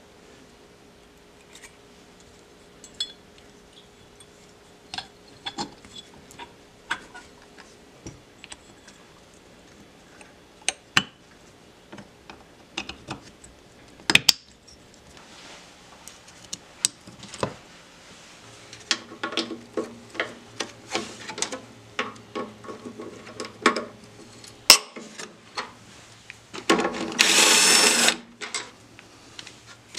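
Small metal brake parts clicking and tapping as they are handled and fitted into a motorcycle brake master cylinder by hand. Near the end a cordless power driver runs once for about a second and a half on the front brake caliper bolts, the loudest sound.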